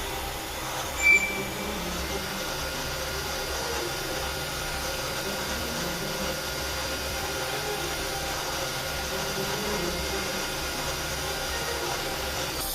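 CNC lathe running and machining with a steady mechanical hum and hiss, and a brief high-pitched chirp about a second in.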